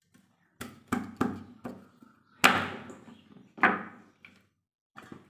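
Heavy steel cleaver chopping a corn cob on a wooden chopping board: about eight uneven chops, the loudest about two and a half seconds in.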